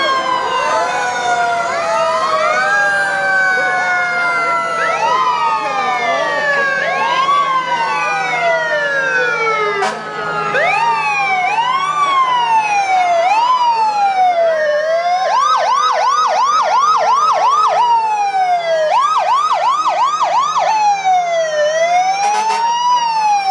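Several fire-apparatus sirens sounding at once. Slow wails rise and fall, long tones fall slowly, and about two-thirds of the way through there are two short runs of fast yelp.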